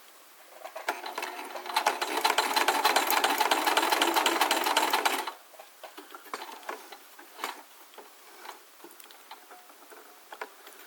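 Domestic sewing machine stitching a diagonal seam across the reinforcing box on a bag handle, running up to speed about a second in and stopping abruptly after about four seconds of fast, even stitching. After it stops, a few light clicks and taps.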